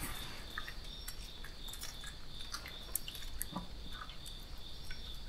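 Crickets chirping steadily at a high pitch, with a few faint taps and clicks.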